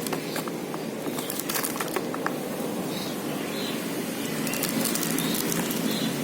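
Plastic packaging being handled and crinkled, with scattered crackles and clicks in two clusters, over a steady background noise.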